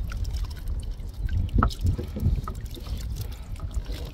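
Water dripping and trickling off a netted crab trap as it is hauled up out of the water, over a steady low rumble, with a few light knocks.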